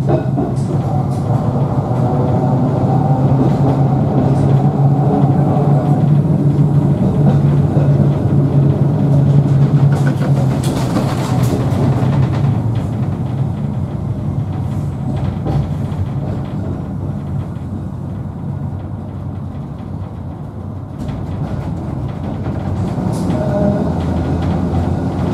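Liverpool Corporation tramcar 762, a 1931 double-deck tram, running along the track, heard from its upper deck: a steady low rumble of wheels and running gear. The rumble eases off for a few seconds past the middle and builds again near the end, with a brief hiss about ten seconds in.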